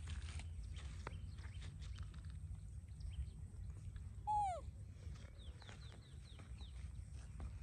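A baby monkey gives one short, falling cry about halfway through. A run of faint, high chirps follows.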